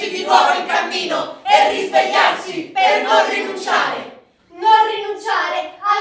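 Several voices of the actors singing together in short phrases, with a brief break about four seconds in.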